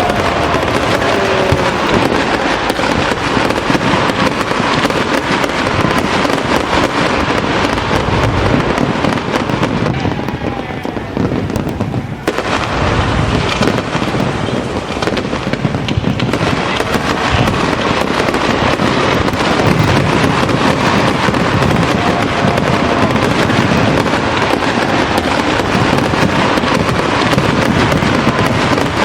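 Fireworks display: a dense, continuous barrage of bangs and crackling. It eases off briefly about ten seconds in, then comes back with a sudden loud burst about twelve seconds in.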